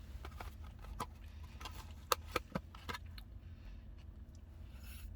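A few sharp clicks and taps, bunched about one to three seconds in, over a steady low rumble inside a car.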